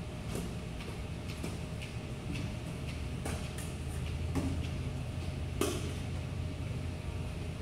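Squeegee and scrubber working a plate-glass window: a string of short swipes and scrapes on the glass, the sharpest about five and a half seconds in, over a steady low hum.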